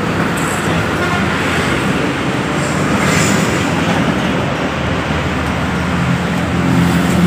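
Steady rumble and hiss of road traffic, with a low engine hum underneath.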